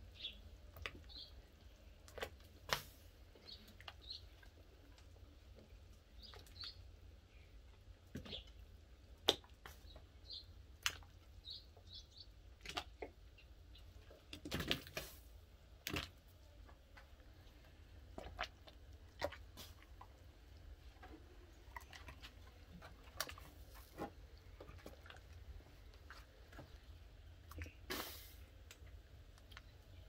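Chunks of vegetable (peeled potatoes, whole onions, tomatoes) dropped one after another into a large pot of simmering broth, each making a short plop or splash at an uneven pace of roughly one every second or two. Small birds chirp briefly in between, over a low steady rumble.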